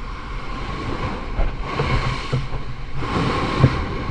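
Rough sea around a small boat: waves surging and splashing twice, over a steady rumble of wind on the microphone, with a few low thumps.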